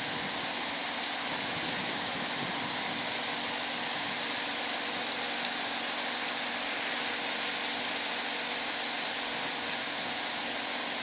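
Steady rushing hiss of wind.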